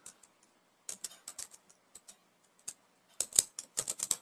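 Typing on a computer keyboard: short bursts of key clicks, a small cluster about a second in and a quicker run of keystrokes near the end.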